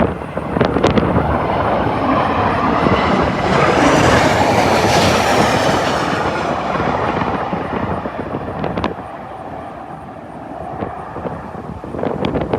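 Southwest Airlines Boeing 737 jet flying low overhead on landing approach: its engine noise swells to a peak about four to five seconds in, then fades away. Wind buffets the microphone throughout.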